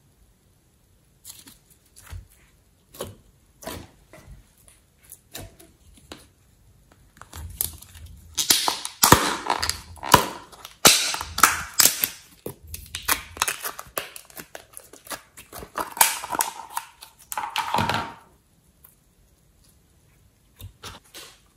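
Hands squeezing clear slime, giving scattered small sticky clicks and pops. About eight seconds in, a louder, denser run of crackling and squishing lasts about ten seconds as a plastic tub of white slime is squeezed and the slime worked out of it; a few soft clicks come near the end as the slime drops into the bowl.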